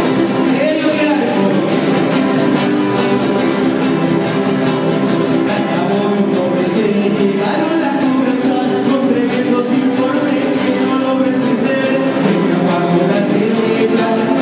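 Folk band playing a corrido, strummed guitars keeping a steady, even rhythm, with a voice singing near the start and again near the end.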